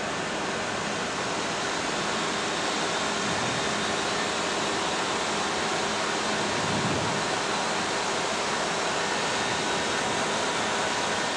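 Airbus A330 flight deck background noise: a steady, even rushing hiss of air and air-conditioning.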